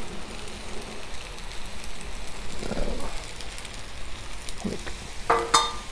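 Shrimp stir-fry sizzling on a hot Blackstone flat-top griddle, a steady crackling hiss. Near the end the stainless steel basting dome is lifted and clanks against the steel, ringing briefly.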